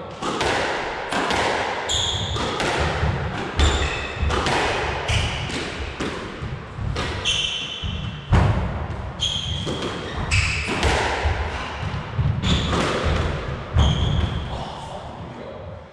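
A squash ball being struck and hitting the court walls in quick, irregular knocks, with short high squeaks of court shoes on the floor between them.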